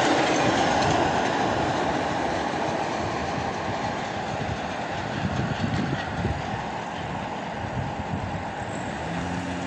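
Freight train of tank wagons rolling past over the crossing, its wheel noise fading steadily as the end of the train moves away.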